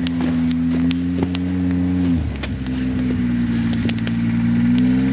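A snowmobile engine running steadily and slowly growing louder, its pitch dropping and shifting about two seconds in, then holding. Sharp pops and crackles from a small wood fire sound over it.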